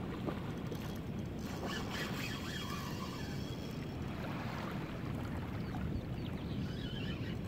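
Steady wind rumble on the microphone over faint lapping of river water, with a few faint higher sounds scattered through it.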